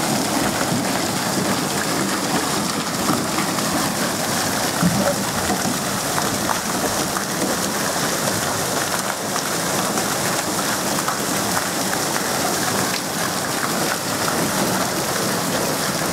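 Steady rush and patter of falling, splashing water from aqua park water features, sounding like heavy rain.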